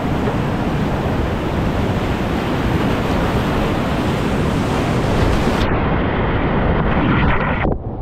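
Loud, steady rush of whitewater, with wind buffeting the microphone. About two-thirds of the way in the sound turns duller, and there is a brief dip just before the end.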